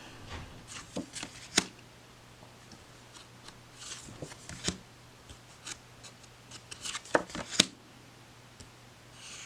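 Tarot cards being handled and flipped through: soft sliding swishes of card against card with scattered sharp taps and clicks. The loudest clicks come about one and a half seconds in and twice more near seven and a half seconds.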